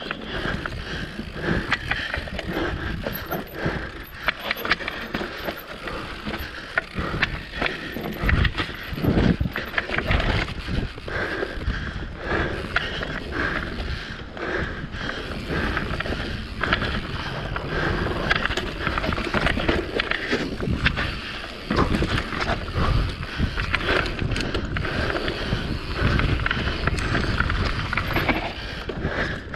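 Mountain bike descending a dirt trail at race pace: continuous rattling and clicking of the chain and frame, with low thumps from the tyres and suspension hitting bumps and roots.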